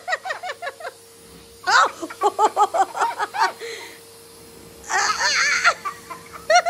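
A young boy laughing in three bouts of quick, giggly laughter, with short pauses between them and a faint steady hum underneath.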